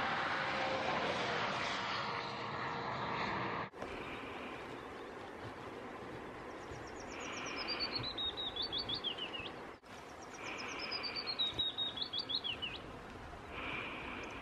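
A steady rush of road traffic that stops abruptly a few seconds in. Then a small songbird sings twice, each song a quick run of notes falling in pitch.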